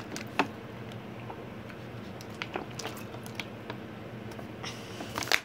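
Thin plastic water bottle crinkling and crackling as it is handled and squeezed, in scattered short clicks with a quick cluster near the end.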